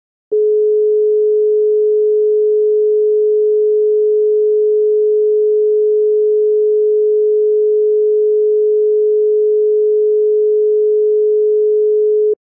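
Bahrain's telephone number-unobtainable tone (ITU version): one steady, unbroken low tone. It signals that the dialled number does not exist or is not in service.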